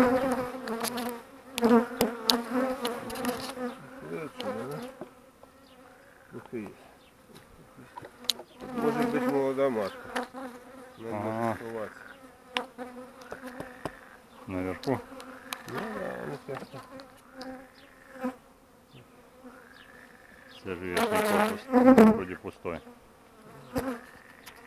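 Honeybees buzzing over an open hive: a steady hum, with single bees flying close past the microphone so that the buzz swells and bends in pitch as each one passes. A few sharp clicks and knocks of handling sound near the start.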